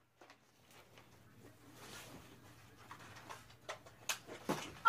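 Mostly quiet room tone with a faint low steady hum, and a few light sharp clicks in the last second.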